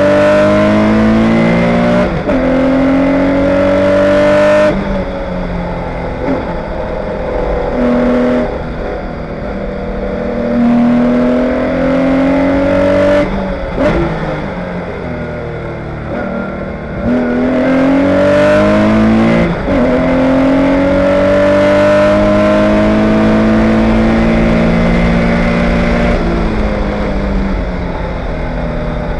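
Porsche 911 race car's air-cooled flat-six engine heard from inside the cockpit at full race pace: the pitch climbs through each gear and drops back at each upshift, several times, with brief dips as the driver lifts and brakes for corners, and the revs easing down near the end.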